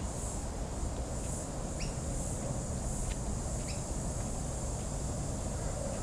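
Australian bush ambience: a steady high insect drone that swells and fades about once a second, with short bird chirps about two seconds in and again near four seconds, over a low steady rumble.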